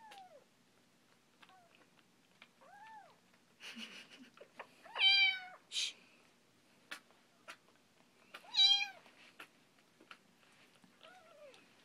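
Just-weaned kittens mewing: about six short, high mews that rise and fall in pitch. The two loudest come about five and eight and a half seconds in.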